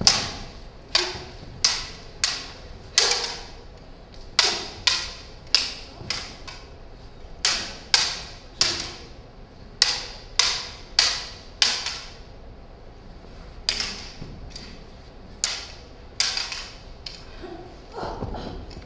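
Lightsaber blades clacking against each other in a sparring duel: about twenty sharp strikes at an uneven pace, some in quick pairs, each with a short ringing tail. A duller thud comes near the end.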